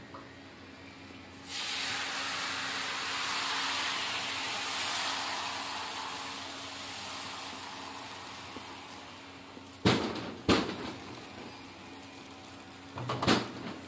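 Bánh xèo batter poured into a hot frying pan, setting off a sudden loud sizzle about one and a half seconds in that slowly dies down. A few sharp knocks follow near the end.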